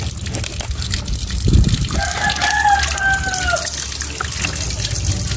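A rooster crowing once, a long call starting about two seconds in, slightly rising and then falling. Under it are scattered light knocks of a knife on a wooden bench as a fish is cut up.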